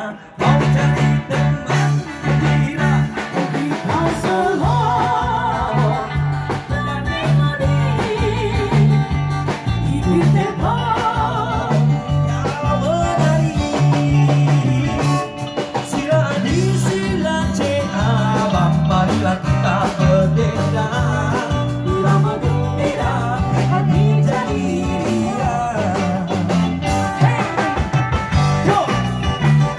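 Live band playing an upbeat a-go-go song on electric guitar and drum kit, with singing into microphones over a steady pulsing beat.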